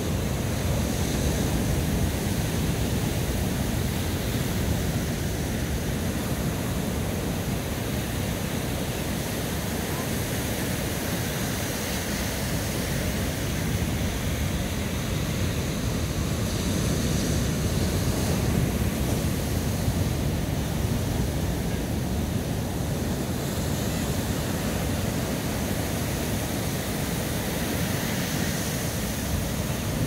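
Big surf breaking, a steady low rumble of waves with wind on the microphone.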